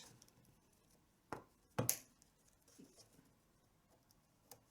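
Needle-nose pliers and the tabla strap being handled as the strap is pulled through the skin's edge: a few faint sharp clicks, the loudest about two seconds in, with quiet between.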